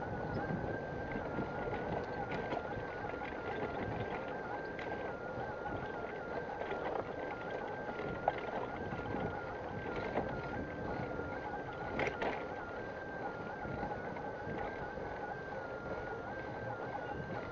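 Steady riding noise from a bicycle rolling along paved street and cycle path: tyre hum, rattle and wind on the microphone, with a few small clicks about eight and twelve seconds in. A thin high tone steps back and forth between two close pitches throughout.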